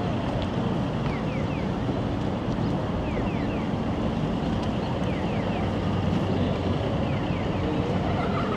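City street background: a steady hum of traffic and the surrounding city. Over it, short falling chirps sound in groups of two or three, roughly every two seconds.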